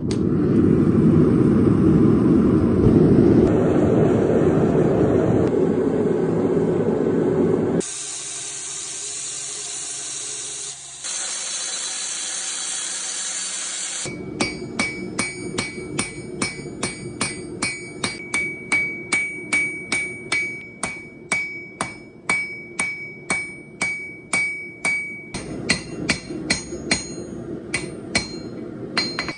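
Blacksmith's hammer striking a Nicholson file being forged into a knife, about two blows a second with a high metallic ring after each, through the second half. Before that comes a loud steady rushing noise, then a hiss.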